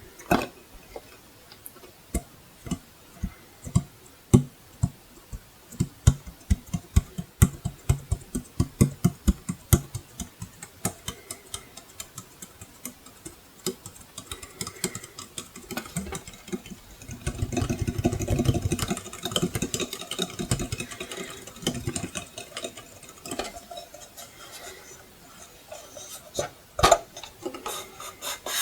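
Tapping on a wall clock's metal and plastic case, in quick runs of sharp taps, with a denser stretch of scratching or rubbing a little past the middle.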